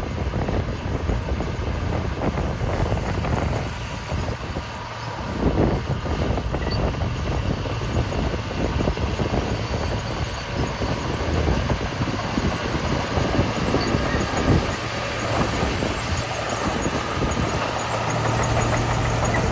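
Heavy diesel construction machinery running steadily, with a low engine hum and scattered short knocks.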